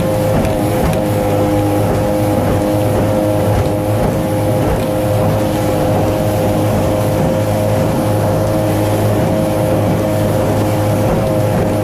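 A motorboat's engine running at a steady speed, its note holding one constant pitch.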